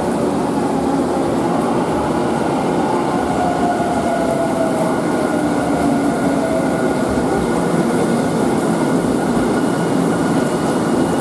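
Electric train running through the station, a steady loud rumble with a faint whine that glides down in pitch.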